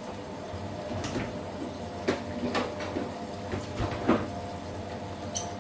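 A few sharp knocks and clicks of a kitchen door being opened and shut while a bottle of dressing is fetched. The loudest knock comes about four seconds in, over a steady faint hum.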